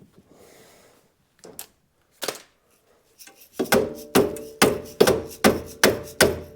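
A hammer striking metal: two single knocks, then a steady run of about seven blows, roughly two a second, each with a short metallic ring.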